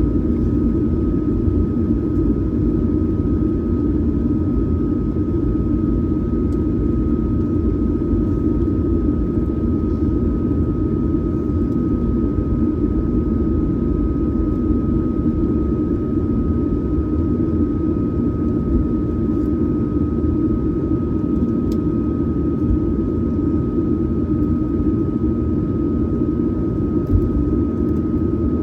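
Inside the cabin of a Boeing 737-900ER, its CFM56-7B jet engines run steadily at idle while the airliner taxis, with a steady thin whine above a low, even rumble.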